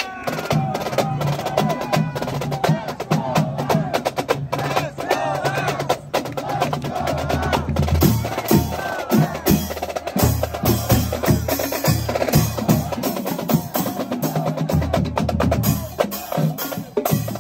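Marching drumline playing a fast cadence on snare drums and a bass drum, dense rapid stick strokes over a steady low drum beat.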